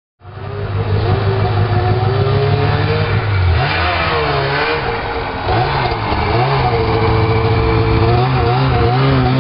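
Snowmobile engine running, its pitch dipping and rising repeatedly as the throttle changes. The sound starts abruptly.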